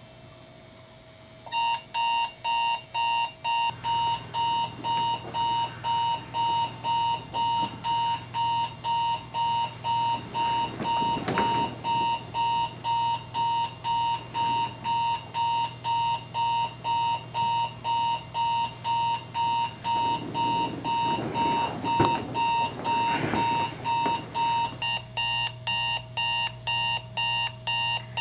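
Digital alarm clock beeping, about two beeps a second, starting a second or so in and going on without a break; the beep pattern changes near the end. Bedclothes rustle in the middle and again later, with one sharp knock late on.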